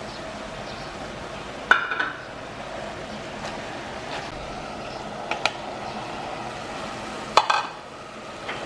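A wooden spatula stirring water morning glory stems in a metal cooking pot, knocking against the pot a few times with sharp, ringing clacks, the loudest about two seconds in and near the end. A steady hiss runs underneath.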